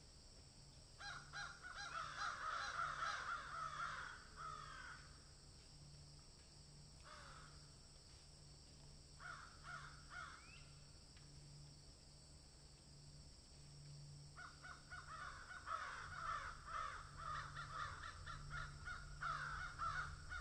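Birds calling in harsh, chattering spells over faint background hum. The calls come about a second in for some three seconds, briefly around seven and ten seconds, and again from about fourteen seconds on.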